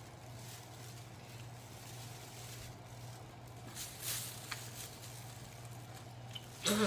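Faint rustling of thin plastic bags held up to the face, over a steady low hum; a short vocal sound comes right at the end.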